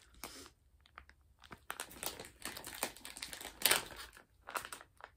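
Clear plastic bag of wax melts crinkling in irregular crackles as it is handled.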